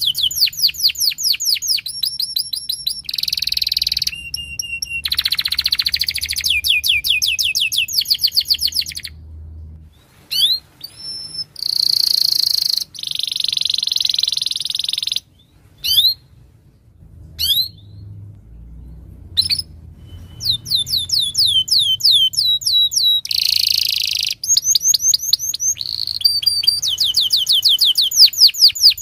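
Domestic canary singing: fast trills of repeated falling high notes alternating with buzzy rolls, with a break of several seconds about halfway through.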